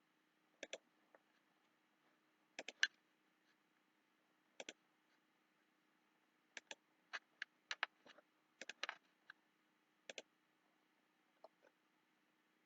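Computer mouse buttons clicking, single clicks and quick double clicks at irregular intervals, with a faint steady hum underneath.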